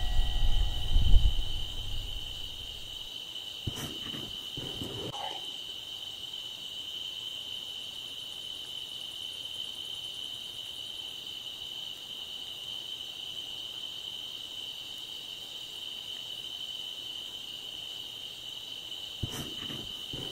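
Insects trilling steadily in one unbroken high-pitched drone. A low rumble fades out in the first two seconds, and a few short sounds break in around four seconds in and again near the end.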